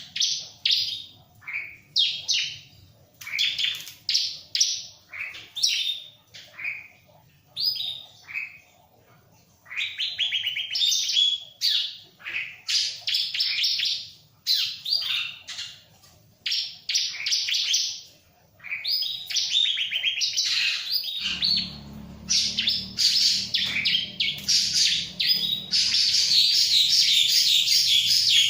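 Bar-winged prinia (ciblek) singing: repeated short phrases of rapid, sharp high notes with brief pauses between them, running into a continuous dense trill near the end. A low hum comes in about three-quarters of the way through.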